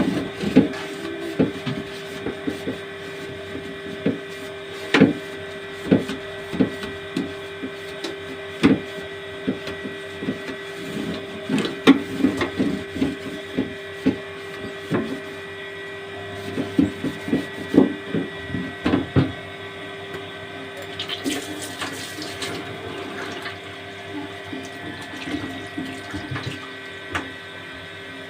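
Tap water running steadily into a sink while a plastic fridge drawer is washed, with frequent knocks and clatters of the drawer being handled and a short splashing hiss about three-quarters of the way through.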